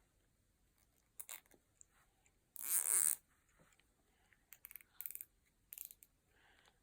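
Plastic zip tie (cable tie) being pulled tight around a plait, its ratchet zipping. One longer zip comes about two and a half seconds in, followed by short runs of rapid clicks.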